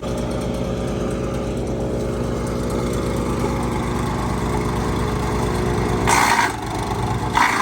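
MechMaxx 6-inch wood chipper's gas engine running steadily. About six seconds in, and again near the end, two short loud bursts of chipping as a branch goes through the blades.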